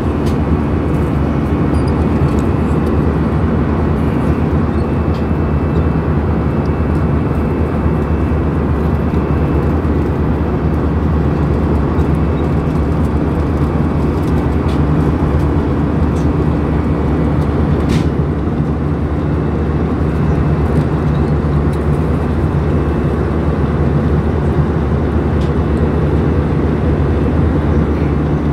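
Steady drone of an Airbus A319's jet engine and rushing airflow heard inside the cabin from a window seat beside the engine, with several steady low hum tones underneath. A single faint click about two-thirds of the way in.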